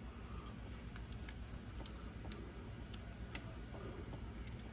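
Scattered light clicks and taps, irregular and a few to the second, from small parts of an RC crawler being handled, with one sharper click a little past three seconds in, over a faint low steady hum.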